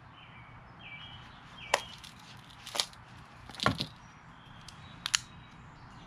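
Sharp clicks and snaps from handling a wood-grain folding pocket knife and its belt sheath, four of them about a second apart, with the blade open by the end.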